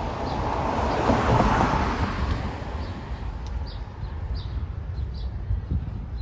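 Distant jet airliner climbing out after takeoff: a low steady roar that swells about a second in and then slowly fades. Small birds chirp several times over it.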